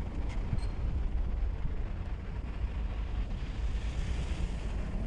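Wind buffeting the microphone in a low, steady rumble.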